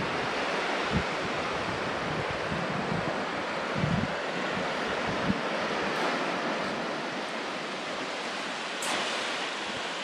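Sea surf washing in over a flat sandy beach, a steady rush, with wind buffeting the microphone in low thumps during the first few seconds.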